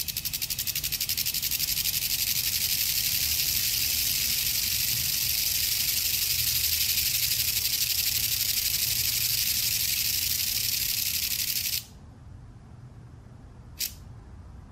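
Annax flipdot display panel clattering as its electromagnetic flip-discs are flipped by their solenoid coils while text scrolls across it: a rapid, even stream of small clicks that cuts off suddenly about twelve seconds in. One lone click follows near the end.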